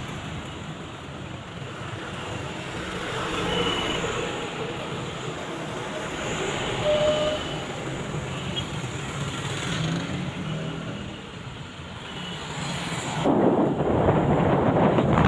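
Heavy rain: a steady rumbling roar that grows suddenly louder and harsher near the end.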